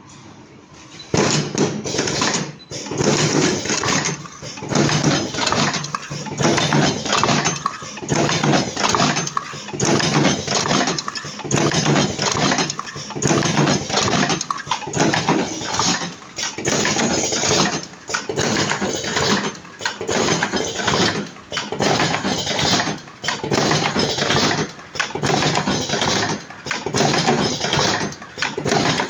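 Vertical automatic cartoning machine running, a dense mechanical clatter that starts about a second in and swells and eases in repeating cycles every one and a half to two seconds.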